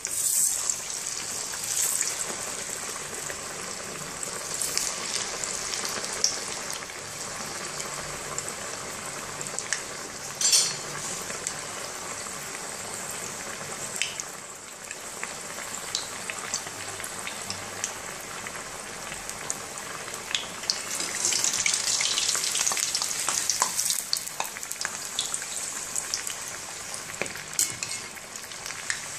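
Green chickpea tikkis deep-frying in hot oil: a steady crackling sizzle that flares up as a tikki goes into the oil at the start and grows louder for a few seconds about two-thirds of the way through. A single sharp click comes about ten seconds in.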